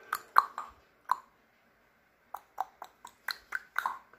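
African grey parrot making short popping clicks: four in the first second, then after a pause of just over a second, about seven more in quick succession.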